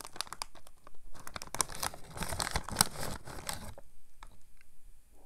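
Plastic snack bag crinkling as it is handled and reached into, a dense crackle that dies away about three and a half seconds in, leaving a few faint crackles.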